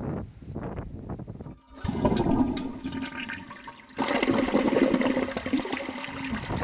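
Rushing, splashing water over a steady low hum. It starts abruptly about two seconds in, dips briefly, and comes back louder at about four seconds.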